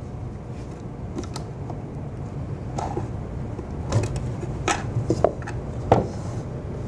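Metal ball-bearing full-extension drawer slides clicking and clinking as a drawer is pulled out and released from them. There are scattered sharp clacks, a few with a short metallic ring, over a low steady hum.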